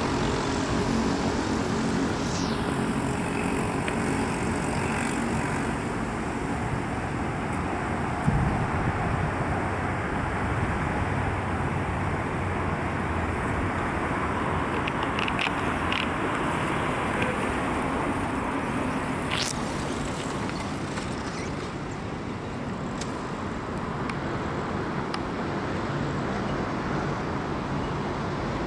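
Steady hum of city road traffic, cars passing without a break, with a single dull knock about eight seconds in.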